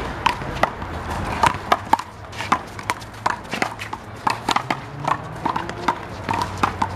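One-wall handball rally: a rubber handball slapped by hand and smacking off the wall and pavement in a quick, irregular run of sharp hits.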